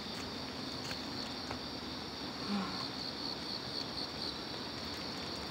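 Insects chirping steadily in a high, evenly pulsing trill of about four to five pulses a second, with a faint short low sound about two and a half seconds in.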